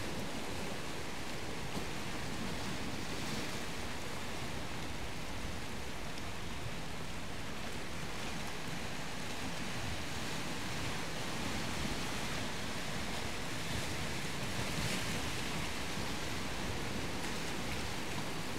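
Steady wash of surf, an even hiss of water with no breaks or distinct events.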